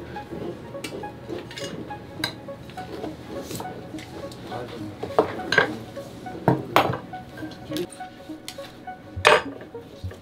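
Sharp clicks and clinks of hand tools, a knife among them, against wooden boards on a workbench. Several come close together around the middle and the loudest comes near the end, over soft background music.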